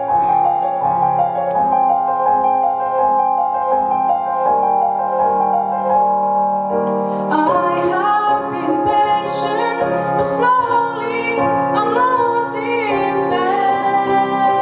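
Roland FP-7 digital piano playing a slow accompaniment alone. About seven seconds in, a young woman's solo singing voice comes in over it.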